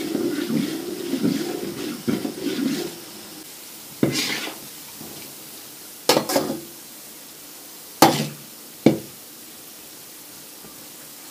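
Metal spoon stirring and scraping bread pieces around a steel pan over a steady sizzle of frying, rhythmic for about the first three seconds. Then the spoon knocks sharply against the pan five times, a second or two apart.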